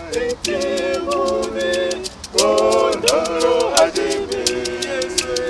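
Several voices singing together, with a shaker rattle keeping a quick, even beat. The singing swells louder about halfway through.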